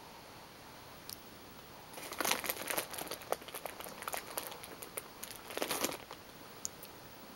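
Plastic bag of gummy bears crinkling, rustled in two louder bursts about two seconds in and again near six seconds, with scattered small clicks.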